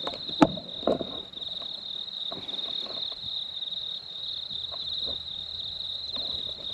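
Crickets chirring steadily in one high band, a fast fine pulsing that does not let up. A sharp click about half a second in and a softer knock near one second stand out over it.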